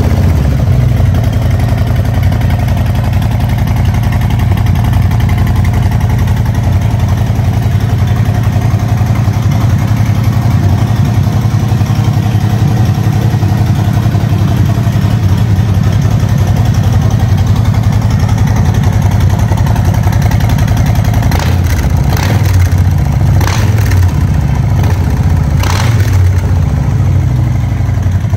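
Harley-Davidson Fat Boy 114's Milwaukee-Eight 114 V-twin idling steadily, with a deep low rumble.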